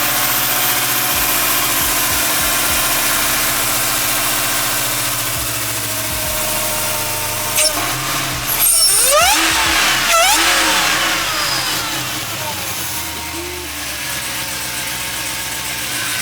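Supercharged Hellcat HEMI V8, freshly swapped into a 1969 Dodge Charger, idling steadily, then revved twice in quick succession a little past halfway before settling back to idle.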